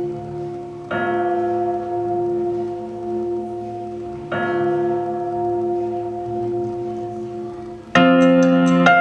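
Bell tolling in a song's instrumental introduction: two strokes, about a second in and again about three seconds later, each ringing on and slowly fading. Near the end a louder keyboard accompaniment with a quick ticking beat comes in.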